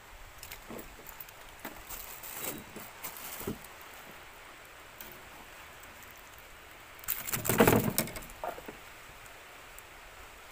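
Small metallic clicks and rattles of a fish lip-grip, pliers and a lure's treble hooks as a hooked fish is unhooked by hand, with a louder scuffling rattle lasting about a second a little past halfway.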